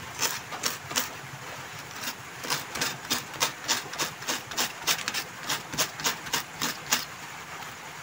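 Short, irregular metallic scrapes and clicks, two or three a second, of a small tool cleaning a rusted battery spring contact from a wireless microphone.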